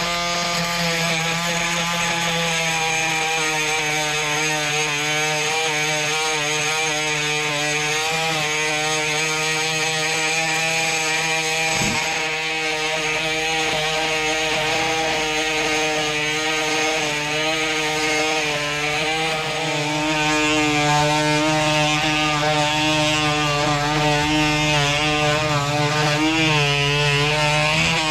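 Electric power tool motor running continuously at a steady pitch that wavers slightly as the load changes.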